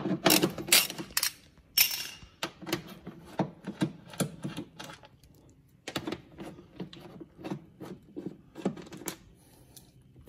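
Ratchet wrench clicking in quick runs as 10 mm bolts are undone from under a bumper, with a brief lull about five seconds in.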